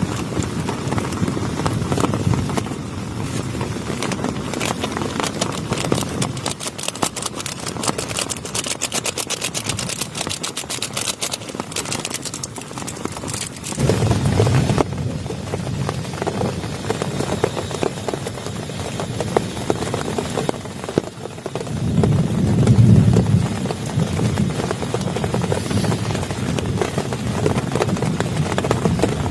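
Heavy rain drumming densely on a plastic tarp, a fast patter of countless drops, with two low rumbling swells, about fourteen seconds in and again past twenty-two seconds.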